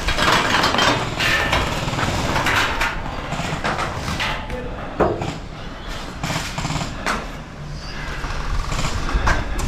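Foam-dart blaster fire during a Nerf game: irregular clicks and knocks, with a sharper knock about five seconds in, over a steady rustling noise.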